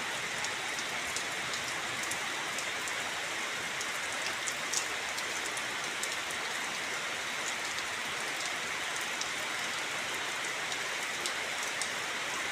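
Steady rain falling, a constant hiss with scattered sharper ticks of individual drops.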